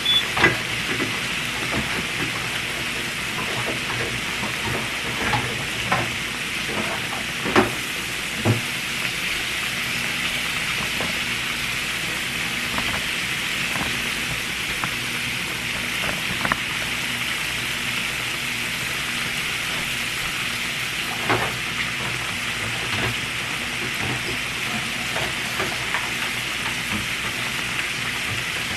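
Food frying in hot oil: a steady sizzle with a few sharp pops and clicks scattered through it.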